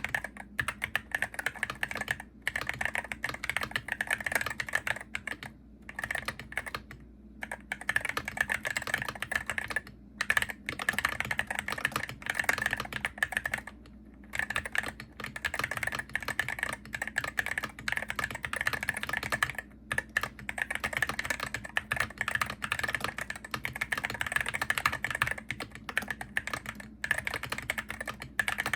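Steady typing on a Hero68HE gaming keyboard: a dense run of quick key clicks with short pauses every few seconds.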